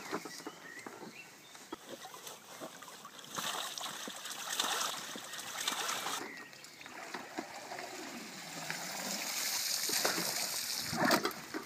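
A keepnet full of roach and rudd being hauled out of a lake, with water splashing and pouring out through the mesh in two spells. The first runs from about three and a half seconds in, the second from about eight seconds in.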